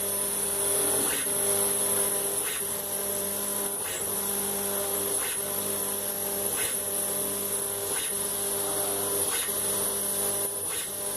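Stepper-driven hobby CNC machine running a touch-probe scan: a steady motor hum and high whine, with a short sharp click about every second and a third as the probe steps and touches down.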